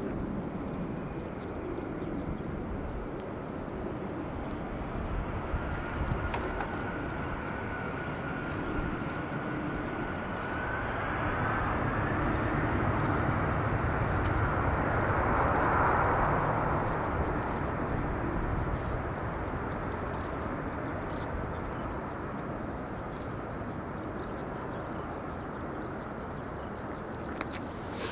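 Boeing 777-200ER jet climbing out after takeoff: the steady roar of its two turbofan engines, swelling to its loudest a little past halfway and then slowly fading as it moves away. A thin high tone runs through the first half.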